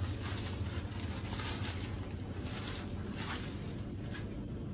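Thin plastic bag full of water crinkling and rustling as it is twisted and knotted shut by hand, over a low steady hum.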